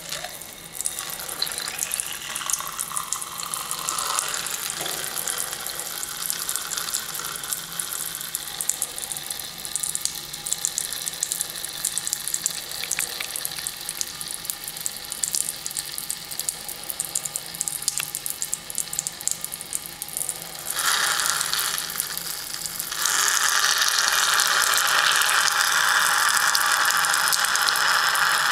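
A stream of urine splashing into a Falcon waterless urinal's porcelain bowl, a crackling spatter that starts suddenly and turns into a louder, steadier hiss near the end as the stream hits the drain cartridge.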